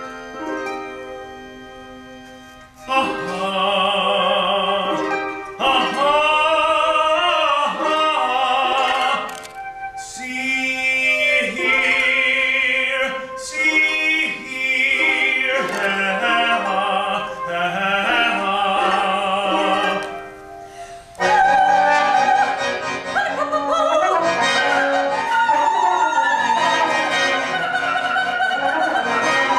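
Live opera music: a high solo voice sings with strong vibrato in long phrases over instrumental accompaniment. About two-thirds of the way in, the voice gives way to louder, busier instrumental ensemble music with strings.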